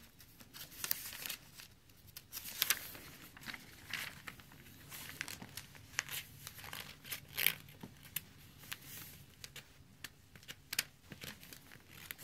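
Sheets of yellow lined legal-pad paper rustling and sliding as they are handled and smoothed on a tabletop, in short, irregular scrapes.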